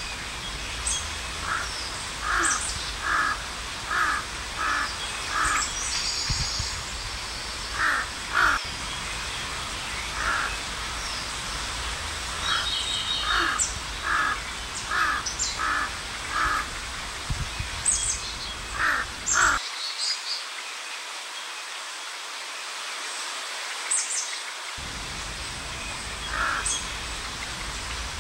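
A crow cawing over and over in runs of four to six caws, a little more than one caw a second, with pauses between the runs. Small birds chirp faintly in the background.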